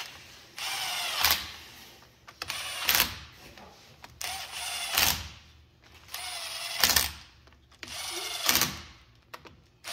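Cordless impact tool running bolts into a combine's reverser gearbox cover: five short bursts about two seconds apart, each loudest at its end as the bolt is driven tight.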